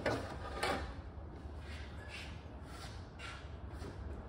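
Hand tools being rummaged through and knocked together: two sharp knocks in the first second, then softer clinks and handling noises, over a low steady hum.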